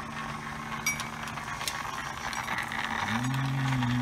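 CM Model E half-ton electric chain hoist with a 1/4 hp three-phase motor running, raising its hook. Its motor and gearing hum steadily and the load chain clinks a few times. About three seconds in, a louder, lower hum starts.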